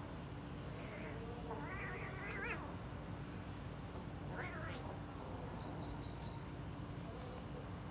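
Kittens meowing: a long wavering meow about two seconds in and a shorter one past the middle, then a quick run of short high chirps, over a steady low hum.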